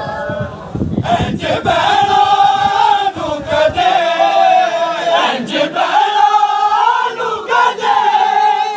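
Crowd of men chanting a Punjabi noha in unison, with open-handed matam blows on bare chests. The massed singing swells in about a second in and carries on in long held lines.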